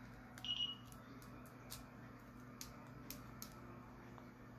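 Small plastic glitter jars being handled: faint scattered clicks and taps, with a short high ping about half a second in.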